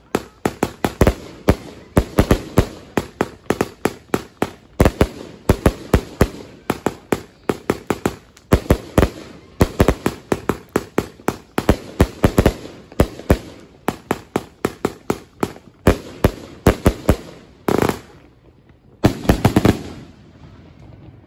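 A 49-shot "Donald in a Fowl Mood" firework cake firing: a fast, unbroken string of sharp, thumpy bangs, several a second, as its shells launch and burst. It ends about 20 seconds in after a last dense cluster of shots.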